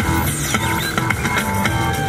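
Upbeat pop dance track with a steady drum-kit beat and guitar.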